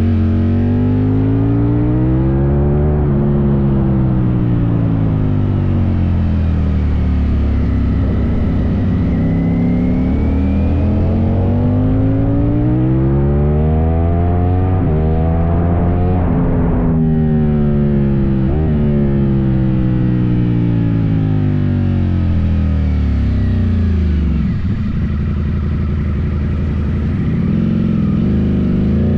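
Ducati Streetfighter V4S's 1103 cc V4 engine through an Arrow aftermarket exhaust, revving hard under acceleration and dropping back under deceleration. The pitch rises for the first few seconds, then climbs for a long stretch to about 16 seconds in and drops off suddenly. After that it falls through a downshift with a short blip and rises again near the end.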